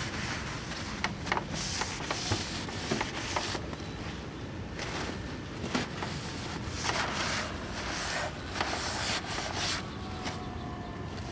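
The grimy cabinet of a vintage portable tube TV being scrubbed clean by hand, in irregular rubbing strokes of about a second each, with a few light clicks and knocks between them.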